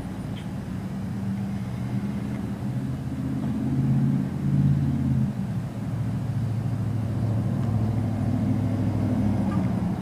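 Car engine running at idle, a steady low hum heard from inside the car. It swells louder about four seconds in and eases back down a second or so later.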